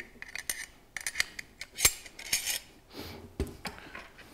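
A jigsaw's rip fence being handled and fitted to the saw's base: a quick run of light clicks and rattles, with two sharper knocks about two and three and a half seconds in.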